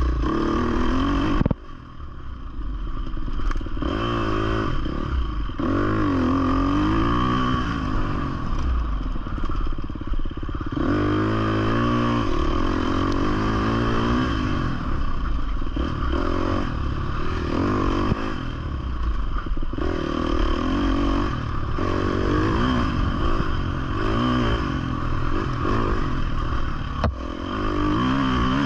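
2020 Husqvarna 350 FC four-stroke single-cylinder dirt bike engine being ridden hard on a trail, its pitch rising and falling again and again as the throttle is worked. The engine sound drops off sharply about a second and a half in, then picks back up.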